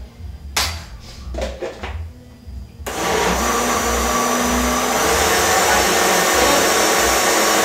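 Countertop electric blender switched on about three seconds in, running steadily as it mixes a liquid pie batter, then switched off at the very end. A few short clatters come before it starts.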